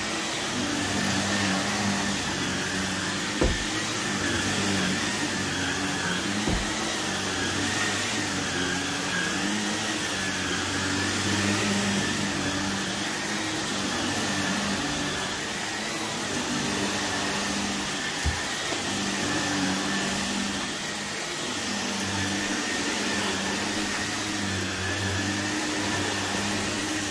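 Corded Shark upright vacuum cleaner running steadily on thick carpet, a continuous rushing noise with a high whine that wavers slightly in pitch. Three short knocks break through, the first about three seconds in.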